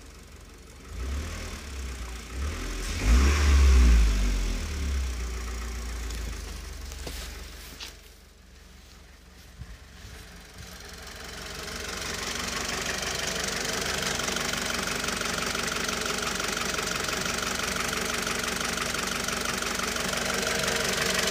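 Mitsubishi 4B11 2.0-litre four-cylinder engine running with an unexplained knock. A loud low rumble in the first few seconds gives way, after a quieter spell, to steady running from about halfway in.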